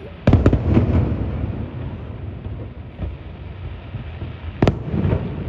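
Fireworks bursting: a loud boom with a few sharp cracks just after the start, a rumble that fades over several seconds, then another sharp bang near the end.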